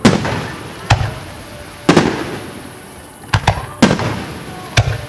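Aerial fireworks shells bursting: about seven sharp bangs, roughly a second apart at first and then in a quick cluster past the three-second mark, each followed by a rumbling echo that dies away.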